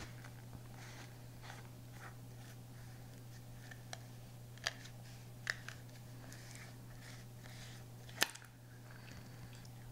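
Plastic screw lid being twisted on a Nutella glass jar: soft scraping rubs and a few sharp clicks, the loudest click about eight seconds in.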